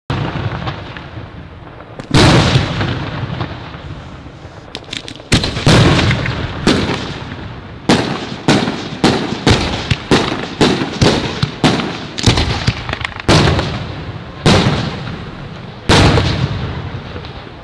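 Aerial firework shells bursting in a fireworks display: a string of loud booms, each dying away slowly, coming about two a second through the middle and spaced further apart at the start and end. A few faint crackling pops come just before the fifth second.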